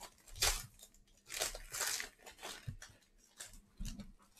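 Packaging of a sports-card hanger box being torn open and crinkled, in several irregular ripping bursts, the strongest about half a second in and around the second and a half.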